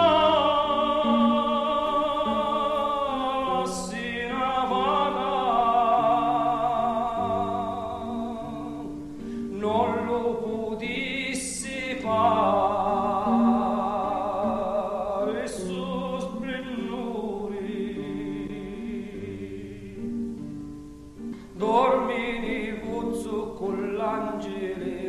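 A singer sings a slow song in Italian with strong vibrato, in long phrases with short breaks, over a held instrumental accompaniment.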